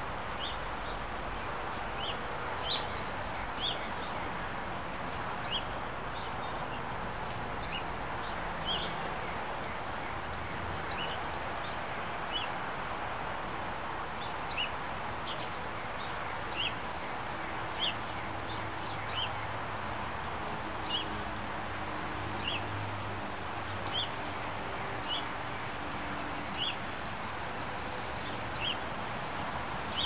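Steady rain hiss, with a bird giving short, high chirps about once a second all the way through.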